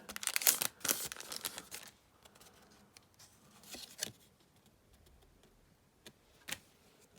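A Pokémon booster pack's foil wrapper crinkling and rustling as it is opened, for about the first two seconds, then a few faint clicks of cards being handled.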